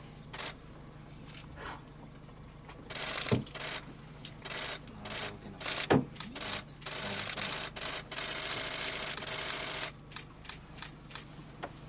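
Camera shutters clicking: single shots, then rapid bursts, the longest running about three seconds in the middle, and a quick run of clicks near the end, over a low steady hum.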